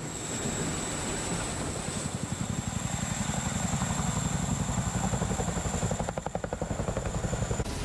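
Boeing CH-47 Chinook tandem-rotor helicopter flying past close by: its rotor blades beat in a rapid, steady rhythm over the engine noise, growing louder in the first second.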